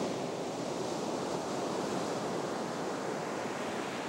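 Sea surf breaking and washing up a sandy beach: a steady rush of waves, easing slightly toward the end.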